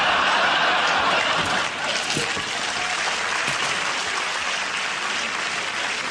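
Studio audience applauding, loudest at the start and easing off slightly over the following seconds.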